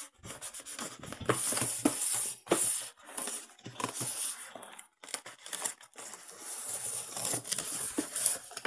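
Clear plastic wrapping on a toy box crinkling and rustling in irregular bursts as hands handle and pull at it.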